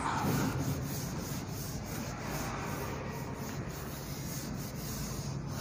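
Whiteboard being wiped clean: steady rubbing across its surface.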